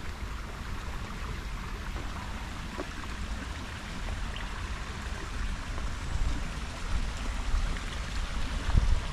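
Water flowing and trickling steadily over the rocks of a garden stream and pond, with a low rumble on the microphone and a few low thumps near the end.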